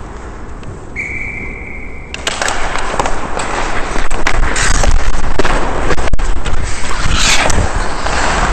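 Ice hockey skates scraping and carving on the rink while skating fast, picked up close by a helmet-mounted camera, loud from about two seconds in. Before that, a short steady high tone about a second in.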